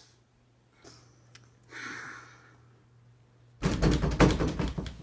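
Loud, rapid knocking on a room door, a fast run of hard knocks lasting about a second and a half near the end. Before it, a soft short hiss about two seconds in.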